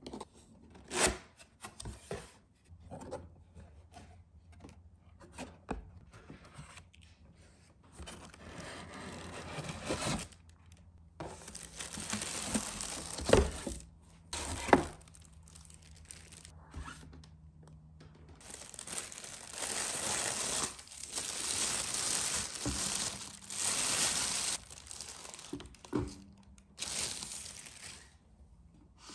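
Unboxing packaging: a few knocks and scrapes of a cardboard box being opened, then long bouts of plastic and tissue wrapping rustling and crinkling as an electric kettle and its base are pulled out and unwrapped.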